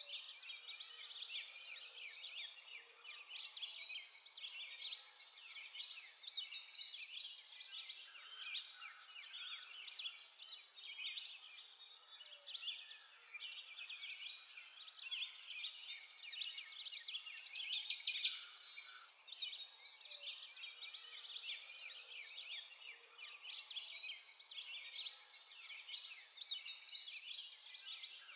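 A dense chorus of small birds chirping without pause, many quick high calls overlapping and swelling and fading every few seconds, with nothing low underneath.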